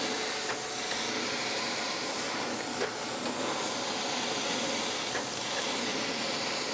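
Landis surface grinder taking a light cleanup pass of about 1.5 thou on a tapered gib under coolant, with the table traversing on auto feed. It makes a steady, high hiss of wheel and coolant on the work, with a faint steady hum underneath and a few faint ticks.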